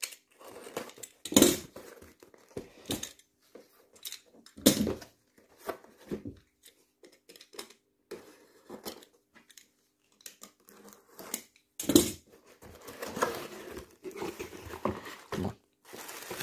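Cardboard box being opened: a utility knife slitting the packing tape, with scrapes and knocks of the cardboard and its flaps being handled, the loudest about a second and a half in, near five seconds and at twelve seconds. Over the last few seconds, bubble wrap crinkling as the contents are uncovered.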